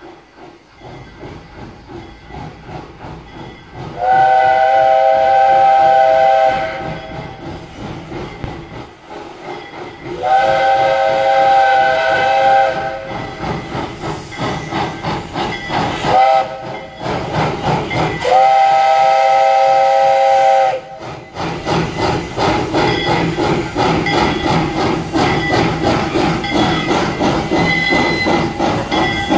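Vulcan-built steam locomotive Mack #85 sounding the grade-crossing signal on its whistle, several notes at once: long, long, short, long. It then draws near, its exhaust chuffing in a quick steady beat with hissing steam.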